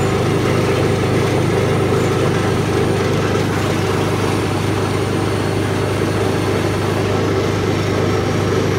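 Electric vibrating flour sifter running with a steady mechanical hum.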